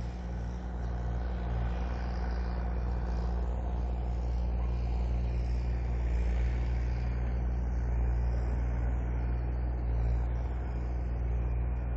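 A diesel engine running steadily, a deep, even low hum with no break.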